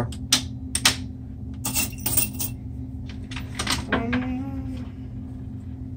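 A claw machine being played: a few sharp clicks, then a brief metallic jingle about two seconds in, typical of quarters dropping through the coin mechanism, over the machine's steady low hum.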